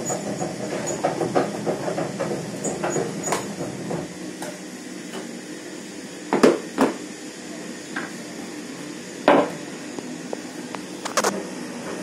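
Sharp knocks over a steady hiss and busy clatter: two knocks close together past the middle, then two more spaced out near the end.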